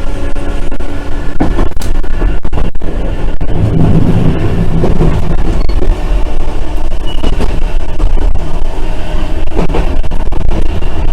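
Randen tram running along the line, heard from inside the car: a steady low rumble of wheels on rail with scattered sharp clicks and a faint steady motor tone.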